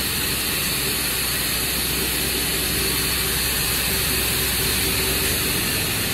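Network cable production machinery running: the steady hum and even hiss of a cable take-off stand and twisting line in operation.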